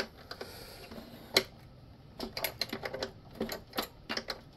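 Small hard parts being handled: one sharp click about a second and a half in, then a run of light, irregular taps and clicks.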